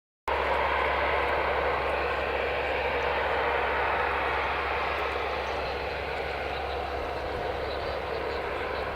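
Aircraft engine noise at an airport, a steady, loud rush that starts abruptly just after the start and eases slightly over the following seconds.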